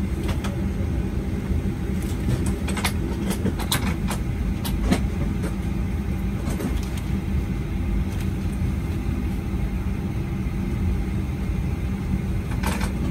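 Cabin noise of a Boeing 737-800 taxiing, its CFM56 turbofan engines running at low taxi power: a steady low rumble and hum, with a few short clicks scattered through it.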